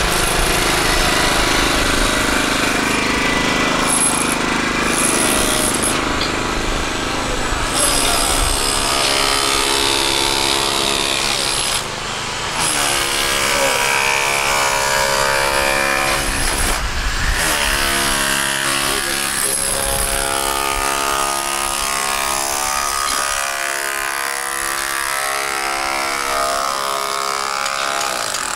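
Tram running along its track: steady rumble and rattle of wheels on rails, with thin, steady squealing tones over the first few seconds. From about halfway through, the electric traction motors whine in a pitch that drops and then climbs again as the tram's speed changes.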